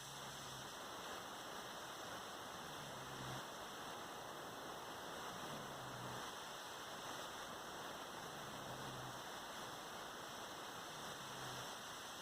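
A person snoring softly, a low drawn-out snore about every three seconds, about four in all, under a steady hiss that is louder than the snores.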